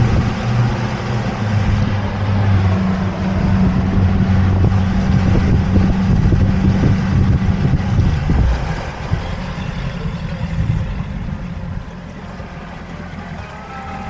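Boat motor running steadily under way, then throttled back and cut about eight seconds in as the boat comes to a stop, leaving wind and water noise.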